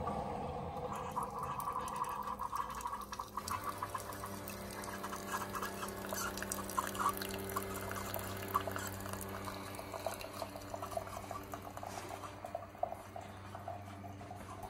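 Single-serve pod coffee maker brewing: coffee pours and splutters into a ceramic mug, and a steady pump hum comes in a few seconds in.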